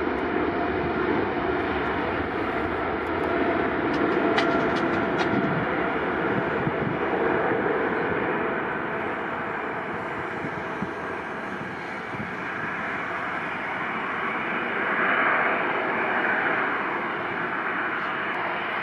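A Boeing 777-300ER's two GE90-115B turbofan engines at take-off thrust during the take-off roll and lift-off. The jet noise is steady throughout, dipping a little past the middle and swelling again near the end.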